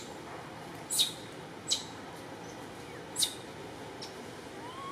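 Baby long-tailed macaque giving four short, sharp, high-pitched squeaks, then starting a rising coo right at the end, over a steady background hiss.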